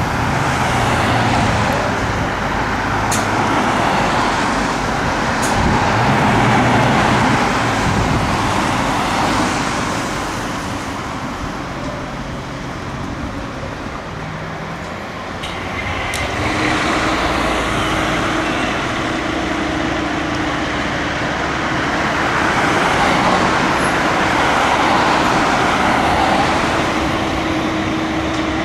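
Passing road traffic, swelling and fading as vehicles go by. About halfway in, a steady low hum starts and holds.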